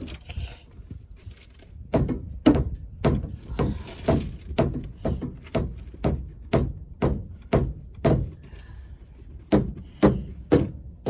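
Repeated hammer blows on a seized tie rod end, about two a second, with a short pause near the end: an attempt to beat the stuck tie rod loose and drive it out.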